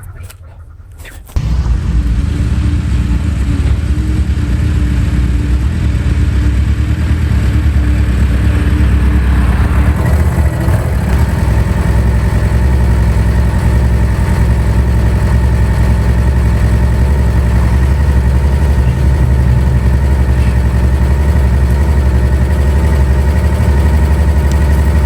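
A work machine's engine running steadily close by. It comes in abruptly about a second in, and its note shifts about ten seconds in.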